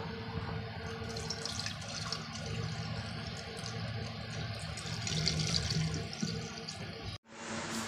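Cloudy rice-rinse water pouring and splashing from a steel bowl into a stainless steel kitchen sink as the washed rice is drained, louder for a moment a little after halfway. The sound breaks off abruptly for an instant near the end.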